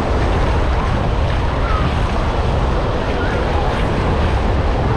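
Steady wash of ocean surf, with wind buffeting the microphone as a low rumble.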